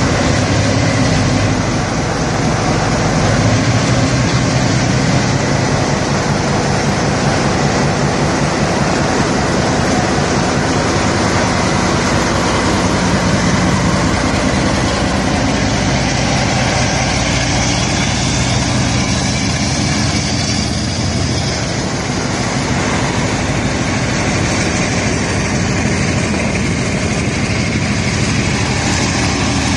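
Class 45 diesel-electric locomotive's Sulzer 12LDA28B twelve-cylinder diesel engine running steadily as the locomotive moves slowly along the line, heard from its open cab window.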